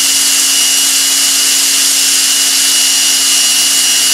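Cordless drill running steadily under load, drilling a tap-drill hole deeper into the cast-iron table of a Bridgeport mill, with a constant motor whine.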